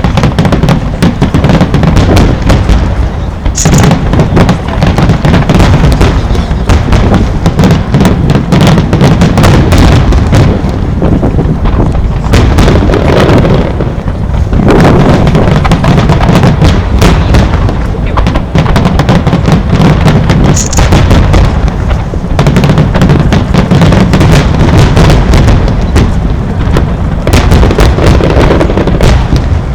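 Fireworks finale barrage: many aerial shells bursting in rapid succession, cracks and booms overlapping into an almost continuous loud rumble.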